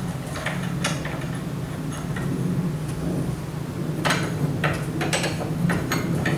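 Scattered metallic clicks and taps of a spanner working on the nuts of a split air conditioner's indoor unit, more of them about a second in and again around four to five seconds in, over a steady low hum.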